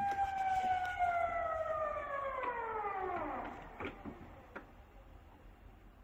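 Outdoor public warning siren sounding from outside: its high steady tone holds, then winds down, the pitch falling over a few seconds until it dies away. A few faint knocks follow.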